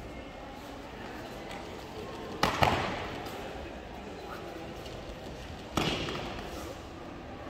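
Two breakfalls on foam tatami mats: an aikido partner's body lands with a thud about two and a half seconds in and again near six seconds, each ringing on briefly in the large hall.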